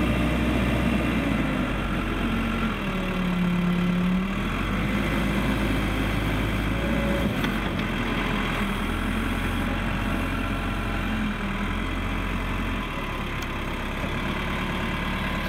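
Case 580L backhoe's turbo diesel engine running, its engine speed dipping and coming back up a few seconds in, then holding steady.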